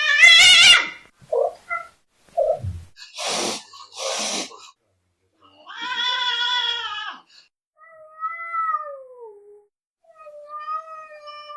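Angry cats yowling and hissing. A loud wavering yowl opens, followed by short low growls and two hisses about three to four seconds in. Then come long drawn-out yowls, the last ones sliding down in pitch.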